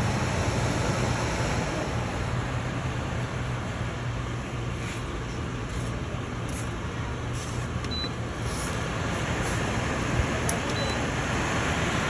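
A 200 W air cooler's fan running steadily, a rushing blow of air over a low hum. Two short high beeps sound in the second half.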